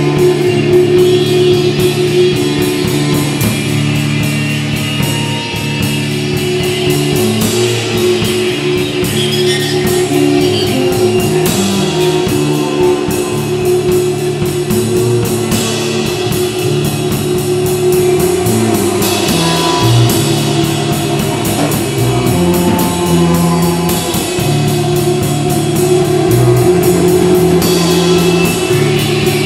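Live experimental band jam: a drum kit keeping a steady beat, bass guitar moving between low notes and guitar over a held droning note, with electronic loops.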